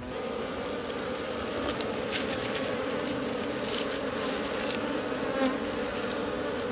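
A mass of wild honeybees buzzing steadily at their opened nest, stirred up by the comb being taken out. Scattered short clicks and crackles come from the comb and plastic gloves being handled.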